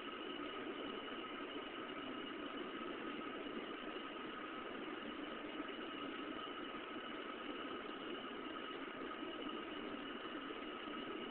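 Steady running noise inside an R142 subway car: an even rushing hum with two faint, constant whines above it.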